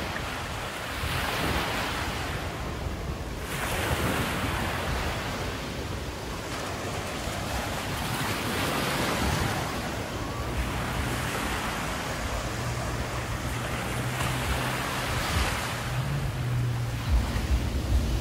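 Small surf breaking on a sand beach and washing over lava rocks, swelling and fading every few seconds, with wind on the microphone. A low rumble swells near the end.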